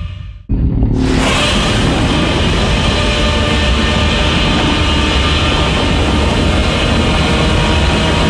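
A Godzilla sound effect from the Legendary films: after a short fade and gap, a loud, dense, noisy effect cuts in about half a second in and holds steady, heaviest in the low end.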